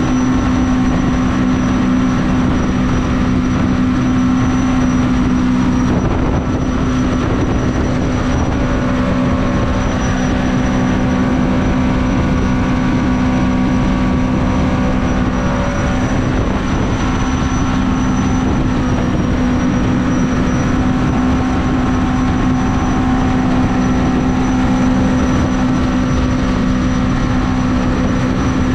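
Mini jet boat's engine running at a steady high speed, holding one even pitch as the boat runs along the river.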